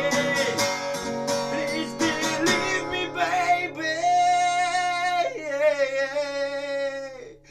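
A man singing to a strummed acoustic guitar. A little under halfway through, the strumming stops and a long held note, stepping down in pitch once, fades out near the end.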